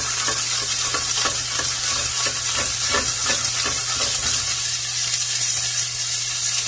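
Green beans sizzling in hot olive oil in a stainless steel sauté pan: a steady hiss. Over it the pan is shaken back and forth on the gas burner grate, a rhythmic scraping clatter of about three strokes a second that stops about two-thirds of the way through.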